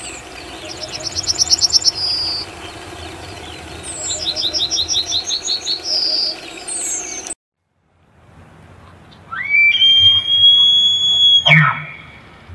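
A yellowhammer sings two phrases, each a fast run of repeated high notes ending in one longer drawn note. After a short silence a bull elk bugles: a whistle that rises and is held high for about two seconds, then breaks off into low grunts.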